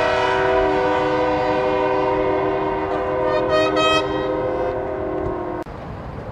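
A train-style multi-chime air horn, the kind fitted to trucks, blown in one long steady chord that cuts off suddenly near the end. A brief shrill higher note joins in about three and a half seconds in.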